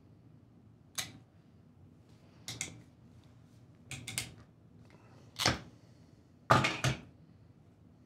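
Ratcheting crimper's jaws and ratchet clicking as its handles are squeezed to crimp a 30 A Anderson Powerpole contact onto a 12-gauge wire: a series of sharp clicks about every second and a half, the loudest near the end.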